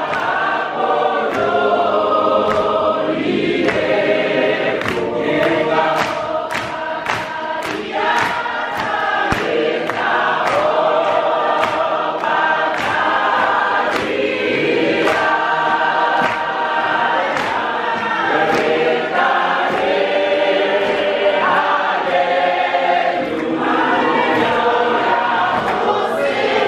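Congregation singing a hymn together in many voices, unaccompanied. Sharp hand-claps keep a steady beat of about two a second for a stretch in the first third and come back near the end.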